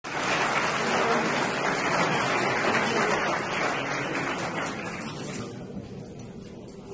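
Audience applauding, the clapping dense at first and dying away about five seconds in.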